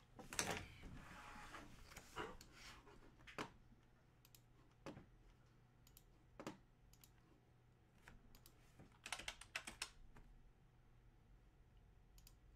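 Faint, scattered clicks of typing on a computer keyboard: a single tap every second or two, then a quick run of keystrokes about nine seconds in.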